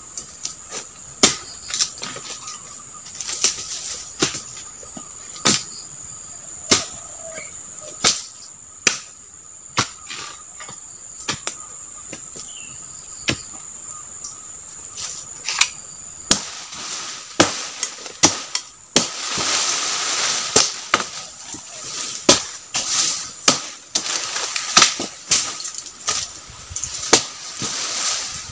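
A long-handled blade chopping at the base of a young oil palm: sharp, irregular strikes that come faster in the second half, with bursts of scraping noise. A steady insect drone sounds throughout.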